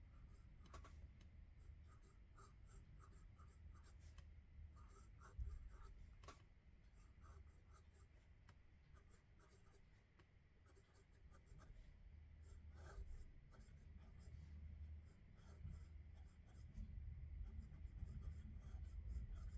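Faint scratching of a fountain pen's 14-carat gold medium nib writing on smooth Clairefontaine 90 gsm paper. It comes as many short strokes as letters are formed, with a few slightly louder ticks.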